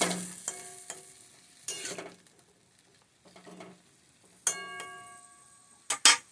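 Metal spatula stirring and scraping in an aluminium karahi of drumstick and potato curry, knocking against the pan so that it rings after each strike. A sizzle dies away in the first second, and two sharp knocks come near the end.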